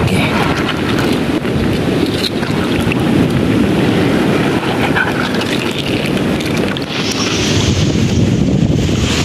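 Wind buffeting the microphone in a steady low rumble, with water sloshing and splashing as a hand swishes a pile of clams in a shallow seawater pool; a brighter hiss of moving water comes in near the end.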